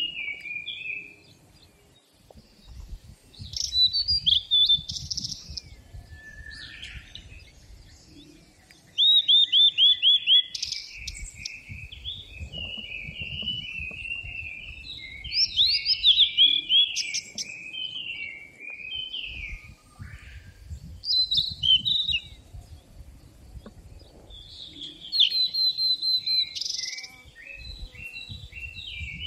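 Songbirds singing: varied chirps and whistled phrases, with quick runs of repeated falling notes about nine seconds in and again near the end, over a faint low rumble.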